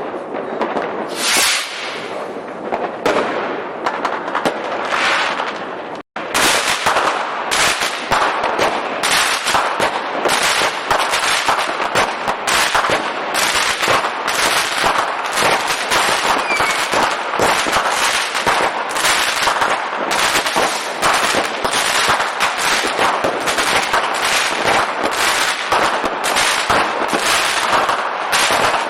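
Fireworks going off in a dense, continuous barrage of bangs and crackles. The sound breaks off for an instant about six seconds in, then the bangs come several times a second without let-up.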